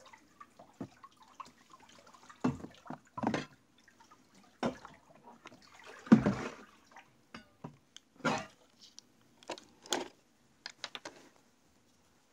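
Water sloshing and swishing in a plastic tote reservoir as it is stirred with a long wooden stick, in irregular swishes every second or two, the loudest a little past the middle. The stirring mixes pH Up into the hydroponic nutrient water.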